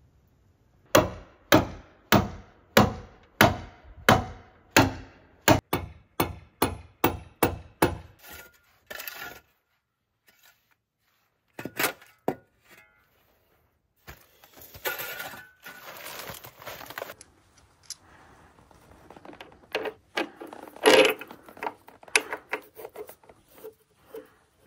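Shovel blade chopping into frozen, muddy ground beside a log wall: a run of about fifteen sharp strikes that speed up. After a short pause come a few more strikes, then scraping and scattered knocks.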